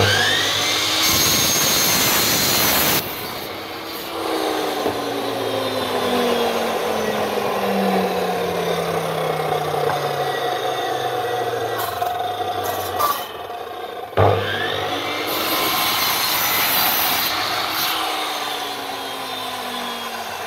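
Mitre saw cutting a wooden plank, twice. Each time the motor whines up to speed and the blade runs through the wood for about two seconds. The motor is then released and winds down with a long falling whine. The second cut starts about fourteen seconds in, after a sharp click.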